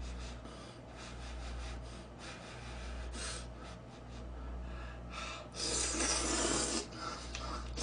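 A person eating noodles: soft eating noises, then a long, noisy slurp of about a second, the loudest sound, around six seconds in.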